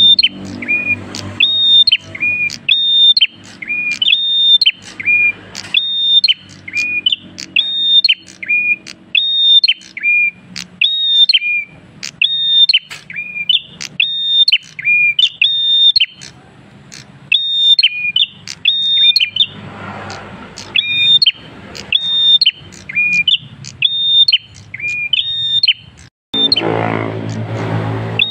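Caged prenjak kristal songbird singing the same loud two-note phrase over and over, a high clear note dropping to a lower one, about one and a half times a second.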